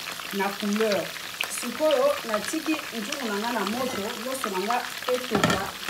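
Rice cooking at the boil in broth in a pot, a steady bubbling hiss. Over it a voice hums a wavering tune with no words, and there is a short clatter near the end.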